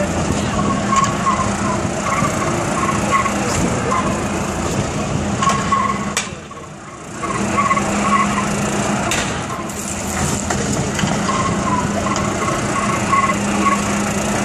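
Runaway utility golf cart circling on its own with its steering turned and accelerator stuck: its motor runs steadily with a low hum, and repeated short squeals come from it as it turns on the pavement.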